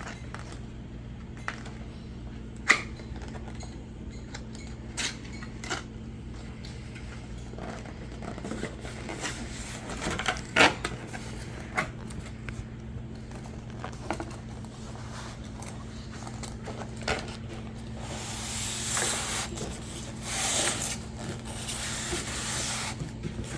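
Cardboard box being opened by hand: scattered taps and knocks as the flaps and packing are handled, then several seconds of rustling paper and cardboard near the end. A steady low hum runs underneath.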